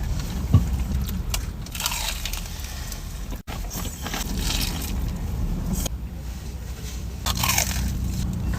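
Close-miked chewing and crunching of a crisp fried Korean corn dog, coming in short bursts of crunches a few times, over a steady low hum.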